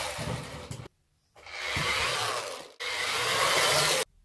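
A toy remote-control car's small electric motor and gears whirring as it drives over carpet. The sound comes in three stretches, each cut off abruptly.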